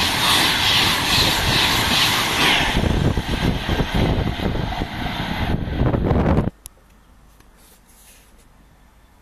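A high-speed express passenger train passes through the platform close by, a loud rush of air and wheel noise with a rhythmic beat as the carriages go past. About six and a half seconds in, the sound cuts off abruptly to quiet.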